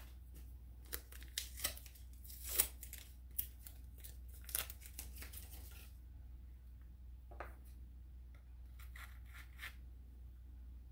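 Paper wrapping rustling and crinkling in the hands: a quick run of light crackles and clicks, thinning out after about six seconds to a few scattered ones.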